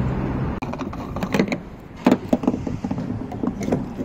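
A run of sharp plastic clicks and knocks from handling a fuel-additive bottle and opening a car's fuel filler cap, after a steady low hum that cuts off about half a second in.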